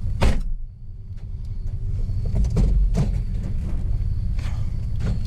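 Van running with a steady low rumble of engine and road noise inside the cab, with one loud knock just after the start and scattered lighter rattles and clicks.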